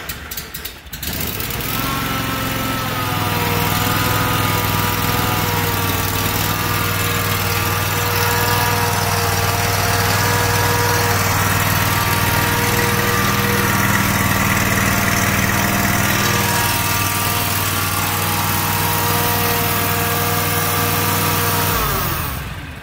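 Freshly installed Kawasaki 25 hp twin-cylinder engine in a John Deere 757 Ztrak mower starts on the choke for its first run. It catches within about the first second, runs steadily for about twenty seconds and is shut off near the end.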